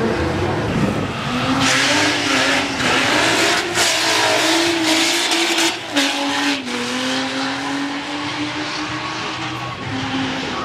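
Two drag cars, one a Honda Civic hatchback, accelerating hard down the strip at full throttle. The engine pitch shifts up and down as they pull past.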